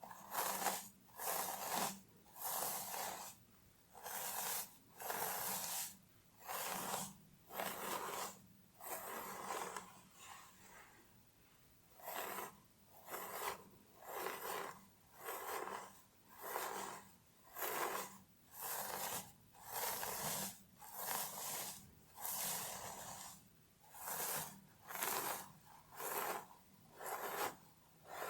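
Fingernails scratching through hair on a scalp in slow, even strokes, about one a second, with a pause of a few seconds about a third of the way in.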